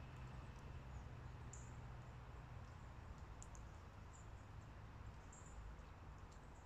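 Near-quiet outdoor ambience: a steady low rumble with a few faint, short high-pitched chirps scattered through it.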